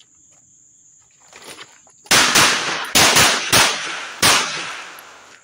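HK P2000 9mm pistol firing six loud shots in about two seconds: two quick double taps, then two single shots, each echoing briefly.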